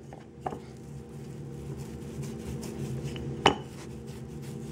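Wooden rolling pin rolling out a stiff salt-and-flour dough on a plastic board, with soft rubbing and a few sharp knocks, the loudest about three and a half seconds in, over a steady low hum.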